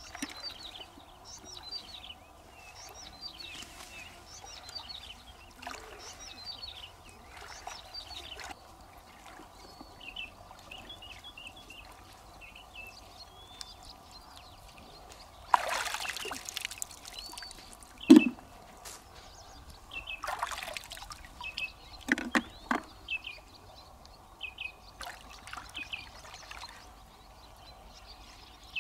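Shallow pond water splashing and trickling as hands and legs move through it, in several louder bursts in the second half, with one sharp knock among them. Small birds chirp throughout.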